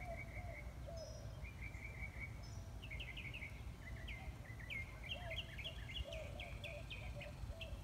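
Several wild birds singing outdoors: quick high trills and chirps, coming thicker from about three seconds in, with lower repeated curved call notes underneath, over a steady low background noise.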